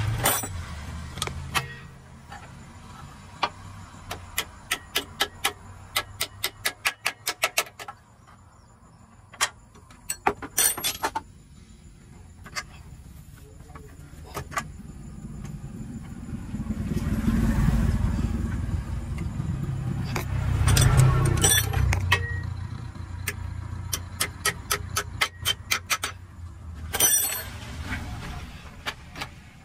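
Sharp metallic clicks and clinks of hand tools at work on a vehicle during a clutch repair, some in quick runs of about four a second. A low engine rumble swells and fades in the middle.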